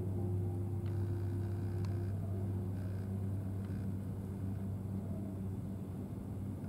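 A steady low mechanical hum, with a couple of faint clicks about one and two seconds in.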